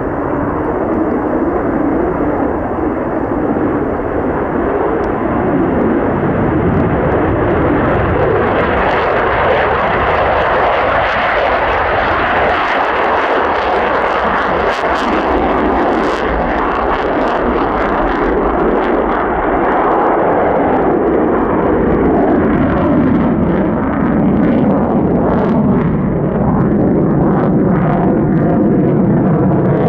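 Jet noise from an F-35A's Pratt & Whitney F135 afterburning turbofan, loud and continuous, with a faint slowly falling tone in the last few seconds.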